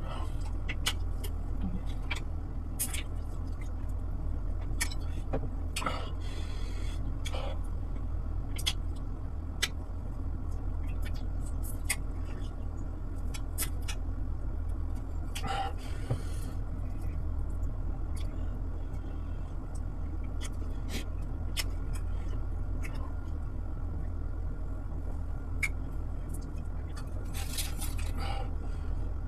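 Close-miked eating sounds: scattered mouth clicks, lip smacks and chewing as fish soup is eaten with the fingers, with a few brief slurp-like noises, over a steady low hum.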